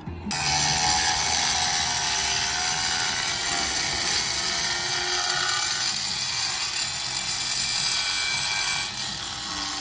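Cordless angle grinder with a diamond blade cutting through a clay creasing tile: a steady, loud grinding that starts suddenly just after the start and eases a little near the end.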